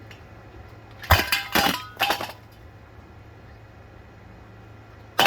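A metal ceiling fan being smashed: three clanging impacts in quick succession about a second in, each leaving a brief metallic ring, and another crash right at the end.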